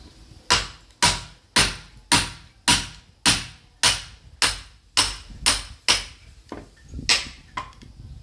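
Sledgehammer striking a chisel to split firewood: a steady run of eleven sharp, ringing blows, nearly two a second, then a pause and one more blow near the end, followed by a lighter tap.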